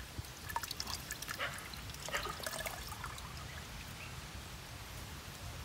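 Coconut water trickling and dripping from an opened, upturned Malayan coconut into a plastic measuring jug, in irregular drips that thin out after about three seconds.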